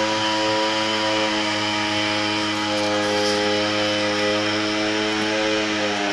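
A small engine running steadily at one even pitch, a continuous droning hum.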